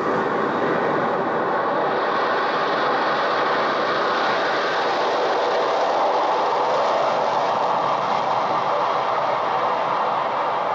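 A recorded sound effect played from a stereo sound-effects cassette on a 1976 Sony TC-520CS cassette player: a steady, loud rushing noise with no clear rhythm that brightens slightly about a second in.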